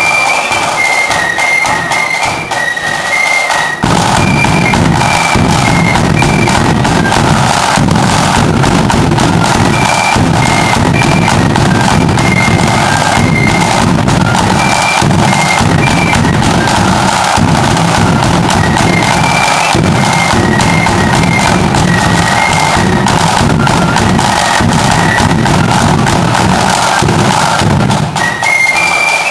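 Marching flute band playing a tune: flutes carry a high melody over rattling snare drums and a bass drum. The drumming grows heavier and fuller about four seconds in.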